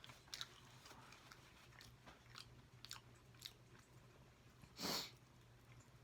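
Faint close-up chewing with scattered wet mouth clicks, and one louder short rush of noise about five seconds in. A faint steady hum runs underneath.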